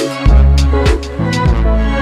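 Background music with a steady beat and bass line.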